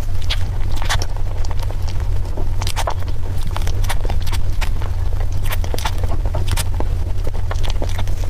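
Close-miked eating of soft mousse cake: irregular wet mouth smacks and small clicks of the spoon, over a steady low hum.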